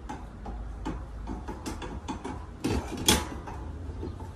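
Screwdrivers turning screws into a metal fire pit's ring and leg: an irregular run of small metal clicks and scrapes, with a louder clatter about three seconds in.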